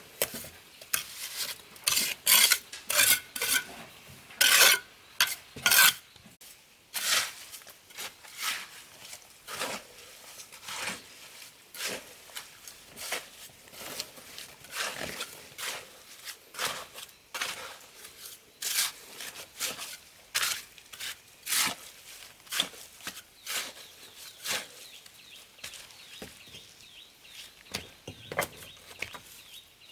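Repeated short scraping strokes of a hand tool on a hard, gritty surface, about two a second and loudest in the first few seconds, then lighter and more scattered.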